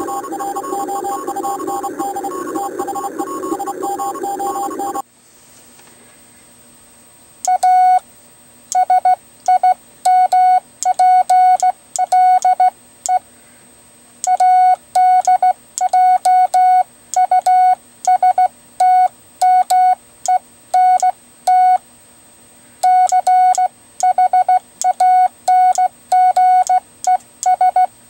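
Morse code sent on a WB9LPU GoBug semiautomatic (bug) key, heard as on-off beeps of a single steady sidetone with a click at each keying, in irregular long and short groups that spell words a decoder reads as "SIMPLE" and "CHANGES". The beeps begin a couple of seconds after a different, denser sound cuts off about five seconds in.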